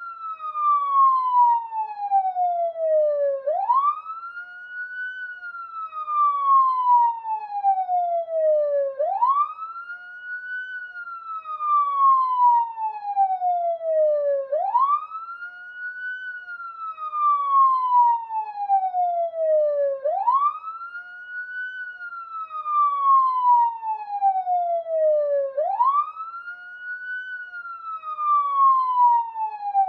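Police siren sounding a slow wail: the tone rises quickly, then falls slowly over about five seconds, and the cycle repeats about five times.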